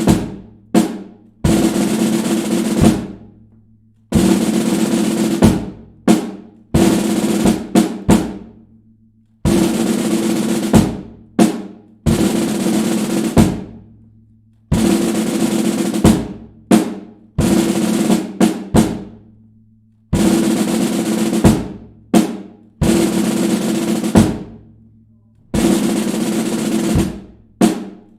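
Snare drum cadence played over and over: short snare rolls of about a second, each broken off by a few sharp accented strokes, in a pattern that repeats about every five to six seconds.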